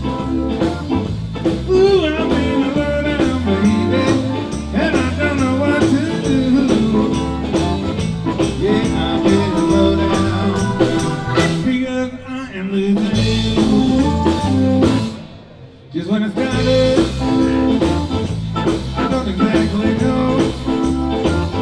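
Live blues band playing amplified electric guitar and keyboard with a rhythm section and some singing. The music drops out for about a second roughly three-quarters of the way through, then comes back in.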